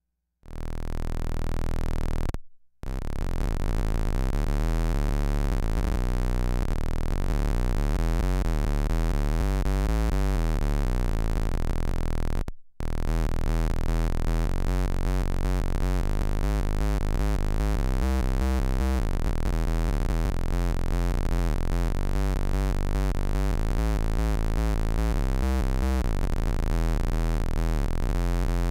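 Instrument played through an EarthQuaker Devices Bit Commander, an analog monophonic synth pedal, giving buzzy synth-like square-wave tones with octaves stacked below. The sound cuts out briefly twice, once a few seconds in and again a little before halfway.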